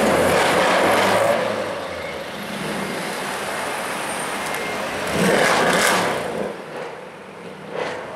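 Mercedes-AMG C63 accelerating hard on the street, with a loud surge right at the start and another about five seconds in.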